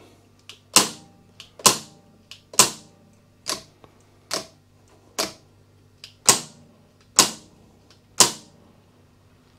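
Triumph Speed Twin handlebar brake and clutch levers being flicked on and off. They make a row of nine sharp mechanical clicks about one a second, with fainter clicks between them.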